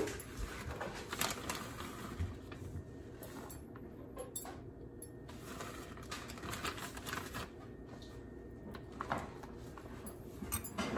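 Plastic shredded-cheese bag crinkling and rustling as cheese is shaken out of it over a casserole, in irregular small crackles with a louder crinkle at the start and again near the end.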